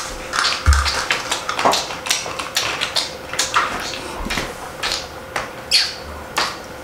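Small hard plastic toys being handled, clicking and clattering against each other and a hard surface in irregular knocks.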